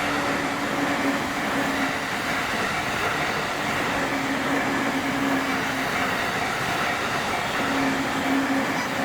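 Electric train running over a multi-track level crossing, a steady, continuous rolling of wheels on rails.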